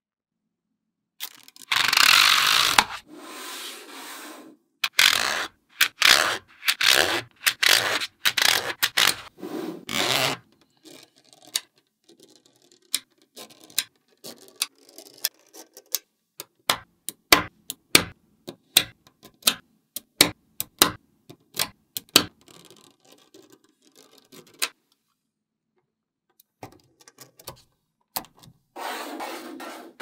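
Small steel magnet balls being handled on a table: a dense scraping, rattling clatter as the balls roll and shift, then a run of separate sharp clicks as strips and layers of balls snap onto each other. After a few seconds' pause near the end, the clatter starts again.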